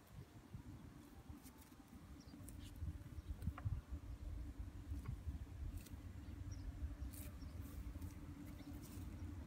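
Young water buffalo grazing: faint, irregular tearing and crunching as it crops and chews grass, over a low uneven rumble.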